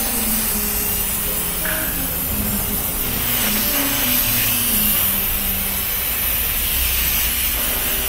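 Aerosol cleaner spraying in a continuous hiss that grows a little stronger about three seconds in, dissolving deposits caked on engine parts.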